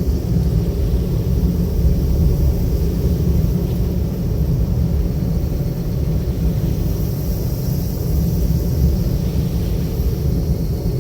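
A car being driven, giving a steady low rumble of engine and road noise.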